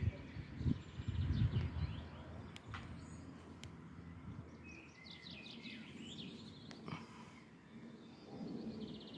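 Birds chirping in short, scattered high calls over a quiet outdoor background, with low rumbling noise in the first couple of seconds.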